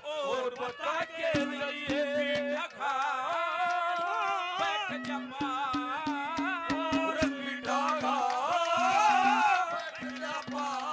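Haryanvi ragni folk music: a wavering, ornamented melody over a steady held low note and hand-drum strokes.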